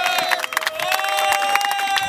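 A group of footballers clapping rapidly while holding one long shouted "oooh" together, with a short break in the shout about half a second in.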